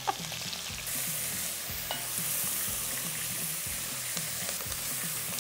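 Food frying in hot oil in a pan: a steady sizzle that comes up about a second in, with repeated soft knocks of a utensil stirring or turning it in the pan.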